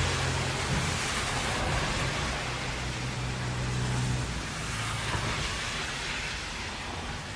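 Traffic on a wet road in the rain: tyre hiss of passing cars swelling and easing over a steady rain noise, with a low engine hum that drops away about halfway through.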